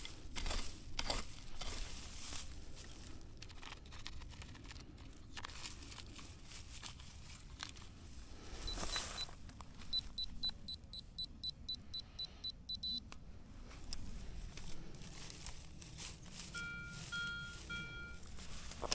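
Metal detector beeping: a quick run of short high pips, about four a second, then a few short lower beeps near the end. Scattered scuffs and clicks in the first half.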